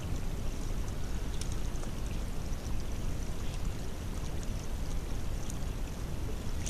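Steady rushing of water pouring through a beaver dam, with faint scattered high ticks over it.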